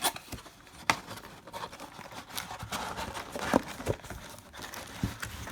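Plastic wrapping on a box of baseball cards crinkling and tearing as it is pulled open, with a few sharp clicks and snaps.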